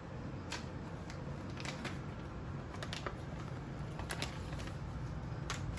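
Scattered light clicks and taps, about a dozen at uneven intervals, of kittens batting a jar ring and an avocado bag around in play, over a steady low hum.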